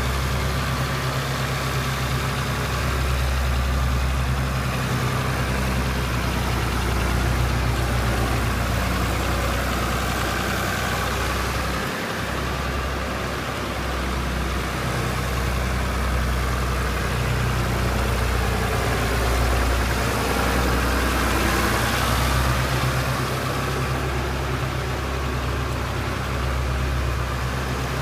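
Fiat 100-90 farm tractor's diesel engine running steadily at a low, even speed, with small swells in level.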